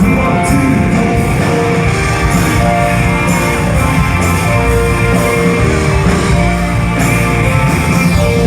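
Live rock band playing an instrumental passage, guitar to the fore over bass and drums, with no singing.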